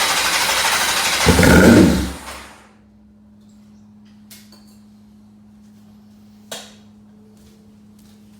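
Honda Nighthawk motorcycle engine being cranked on the electric starter without catching. The cranking stops about two seconds in, leaving a faint steady hum and a couple of sharp clicks. It is a no-start, which the owner suspects is fuel vapor lock.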